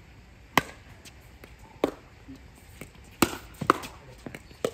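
Pickleball rally: paddles striking the plastic ball with sharp pocks. There are five loud hits at uneven intervals, two in quick succession a little past halfway, with fainter taps between.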